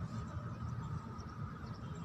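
Cat chewing dry kibble, faint crunching ticks over a steady low rumble.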